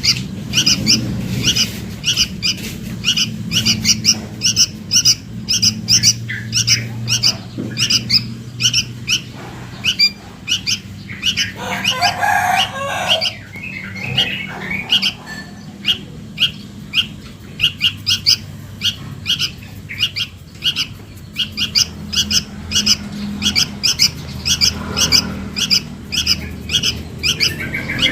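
Young sooty-headed bulbul (kutilang) giving short, high begging chirps over and over, about two a second: a fledgling calling for its parent, used as a lure call. A different, lower-pitched call breaks in about twelve seconds in.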